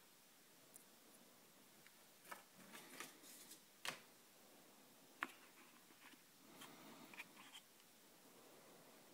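Faint handling noise of a cardboard box and its insert being moved about, with light rustles and scattered sharp taps and clicks, the sharpest about four and five seconds in.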